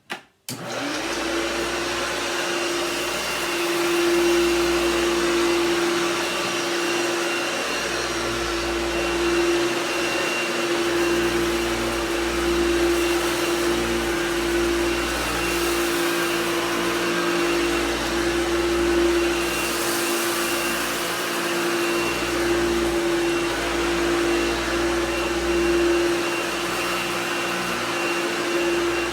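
Vintage Hoover vacuum cleaner switched on about half a second in and running with a steady hum, vacuuming up spilled rice.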